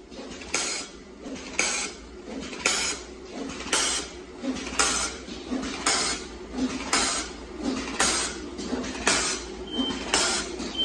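Round-bottom plastic bag making machine running, cycling about once a second: each stroke is a short hissing clack over a steady mechanical clatter.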